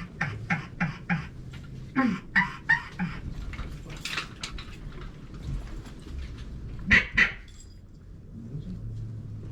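Duck quacking in quick runs: several quacks in the first second, another run about two seconds in, and two loud quacks about seven seconds in. Wind rumbles on the microphone underneath.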